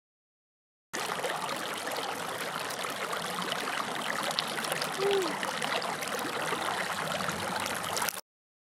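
A shallow creek running and trickling over rocks, a steady rush of water that starts about a second in, after silence, and cuts off abruptly just before the end.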